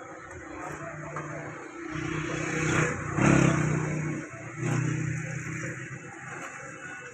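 A motor vehicle's engine running. It swells to its loudest in the middle, dips briefly, rises again and then fades.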